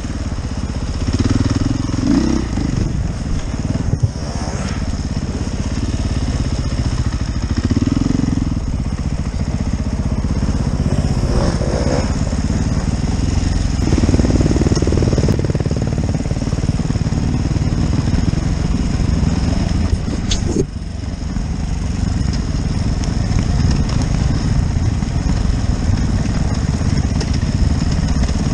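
Husaberg FE450 enduro bike's single-cylinder four-stroke engine running under throttle on trail, revving up and easing off as it rides, heard from a helmet camera with wind noise on the microphone. A few sharp knocks break through, about two and four seconds in and again past the twenty-second mark.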